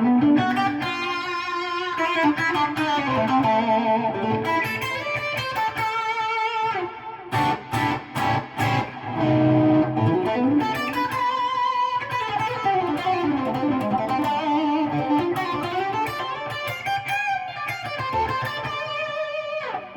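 Gibson R9 Les Paul with Custombucker pickups played through a Friedman SS100v2 amp's first gain channel at mid gain, into a 2x12 cabinet with Austin Speakerworks Crossroads speakers: overdriven lead lines with vibrato and bends. About seven seconds in there is a run of short choppy stabs.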